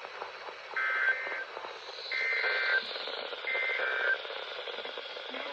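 NOAA Weather Radio receiver sounding the SAME end-of-message code: three short two-tone warbling data bursts about a second apart, closing the Required Weekly Test, over steady radio static hiss.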